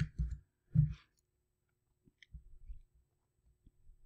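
A few soft computer mouse clicks and knocks, most of them in the first second and one more about two seconds in, with faint low rumbles in between.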